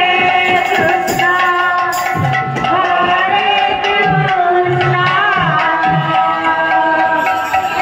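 Live kirtan music: long held melodic notes over hand-drum strokes, with sharp clashes on top.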